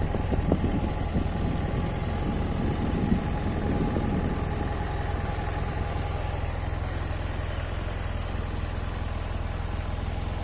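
Steady rush of water from a small waterfall spilling out of a lake, heard as an even low rumble.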